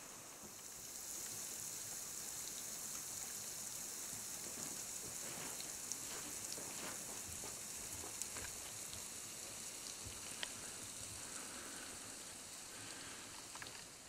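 Steady high hiss with a few faint drips and ticks scattered through it: water trickling and dripping at a frozen waterfall's ice column.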